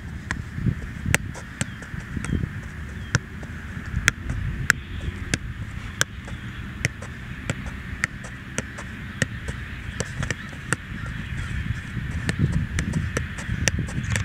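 A soccer ball being juggled: short sharp taps as it is kicked and kept up on foot and knee, about two touches a second with uneven spacing, over a low steady rumble.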